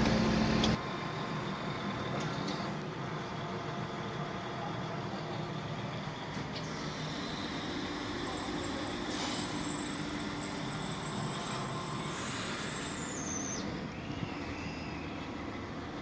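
Backhoe loader's diesel engine running steadily, louder for the first second, with a high whine that slides down in pitch, holds, and cuts off near the end.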